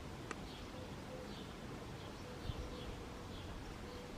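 Faint insect buzz that comes and goes, with a few soft, high bird chirps over a quiet outdoor background.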